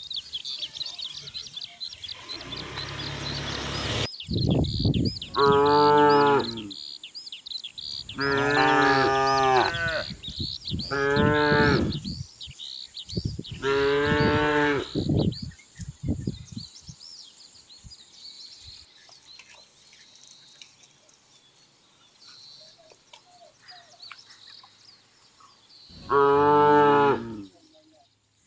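Cattle mooing: five long, deep moos, four in fairly quick succession and a last one after a long pause near the end.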